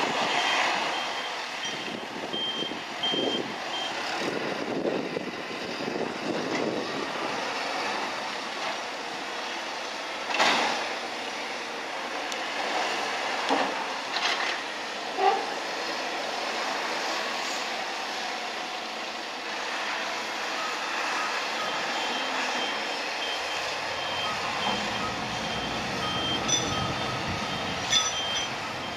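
Heavy machinery's warning beeper sounding a steady series of short high beeps at the start and again near the end, over running machinery. In between come a few sharp metal clanks, one of them ringing briefly.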